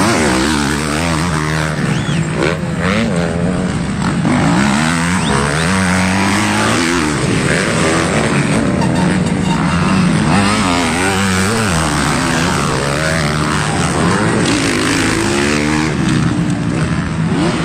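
Motocross dirt bike engines revving hard, their pitch climbing and falling again and again as the bikes accelerate and back off around the track, with more than one engine overlapping at times.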